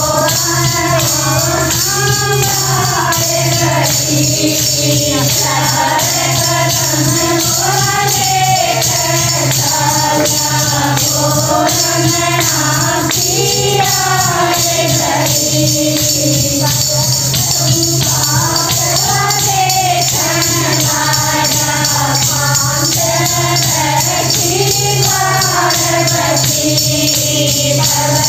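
Group of women singing a Haryanvi devotional bhajan together, with jingling hand percussion keeping time throughout.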